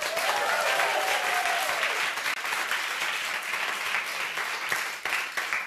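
Studio audience applauding, easing off near the end.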